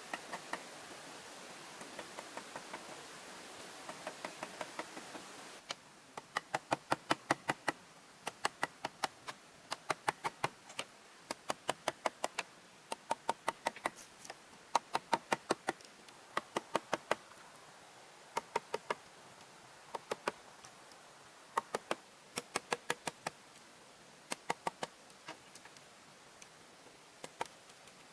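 Rapid, sharp knocks in quick bursts of five to eight, about six a second, with short pauses between bursts.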